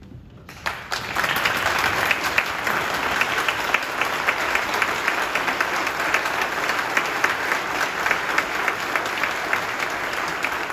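Audience applauding, starting suddenly about half a second in and going on steadily.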